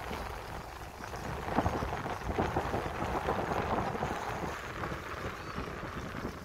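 Wind buffeting the microphone at the seashore: an uneven, rumbling rush, a little stronger for a couple of seconds from about a second and a half in.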